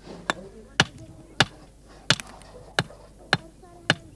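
A hammer striking stone in steady, evenly spaced blows, about seven in four seconds, each sharp with a brief ring: a stonemason dressing stone. Faint voices murmur behind.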